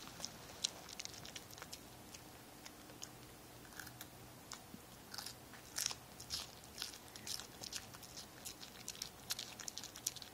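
A small dog biting and chewing a raw sugar snap pea in tiny nibbles: faint, irregular crisp crunches that come thicker in the second half.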